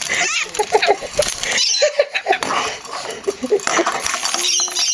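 Rainbow lorikeet chattering and squawking in many short, harsh calls.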